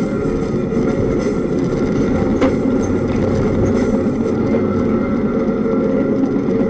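Steady road and engine rumble heard from inside a moving vehicle, picked up by its dashcam, with a single brief click about two and a half seconds in.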